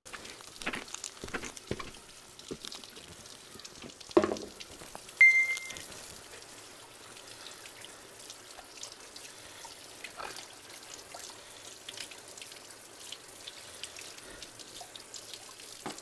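Hot water poured from a camping kettle into a metal mug, with a wood fire crackling in scattered sharp snaps. A couple of louder knocks come about four and five seconds in.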